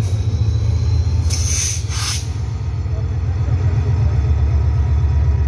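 Diesel locomotive engine rumbling low and steady as the train rolls slowly in along the platform, with a short burst of hiss about a second and a half in.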